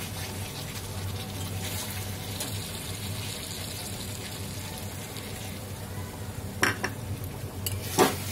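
Spiced potato curry gravy sizzling steadily in a metal kadai while a metal spatula stirs it, with two sharp clinks of the spatula against the pan near the end.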